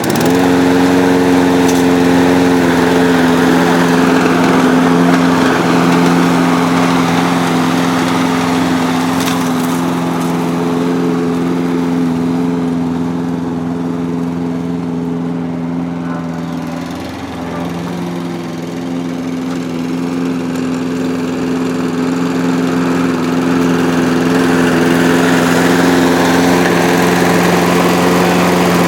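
Briggs & Stratton Quantum single-cylinder engine on a Toro walk-behind mower, just caught, running steadily at speed with a new spark plug fitted. It sags briefly a little past the middle, then picks back up and keeps running rather than dying right after starting.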